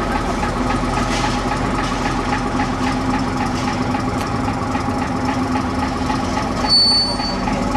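Double-decker bus's diesel engine running steadily as the bus moves slowly past at close range. A short high beep sounds near the end.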